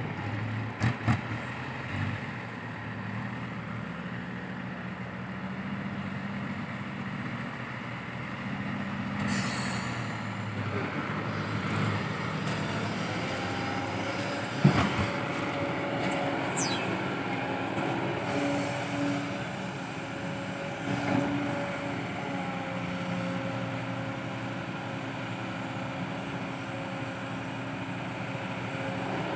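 Kobelco SK200-8 Super XM excavator's diesel engine running steadily under hydraulic load while it digs and loads soil. About halfway there is one loud thud as a bucketful of earth is dumped into the steel bed of a dump truck. A steady higher whine runs through the second half.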